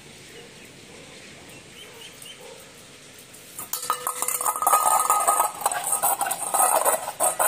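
Stainless steel bowl clattering, scraping and ringing on a concrete floor as a German Shepherd puppy pushes and drags it with its mouth. The clatter is loud and continuous from about halfway in; before that only faint sounds.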